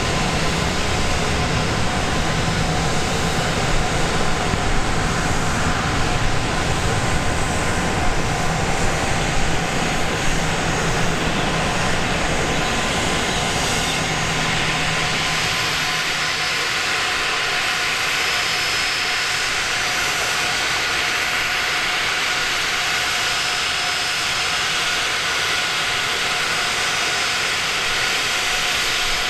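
Gulfstream G650ER's Rolls-Royce BR725 turbofan engines running at taxi power: a steady jet whine and hiss with several steady high tones. A low rumble under it fades out about halfway through.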